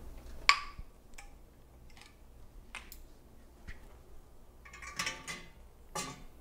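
Two-piece metal canning lids on hot jars of marmalade pinging as they seal while the jars cool: a loud sharp ping about half a second in, then several fainter ones, with a small cluster about five seconds in.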